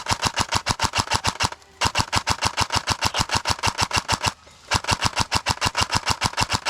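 Airsoft rifle firing full-auto in three long bursts of rapid shots, about a dozen a second, with brief pauses about a second and a half in and just over four seconds in. The gun is firing suppressing fire at close range.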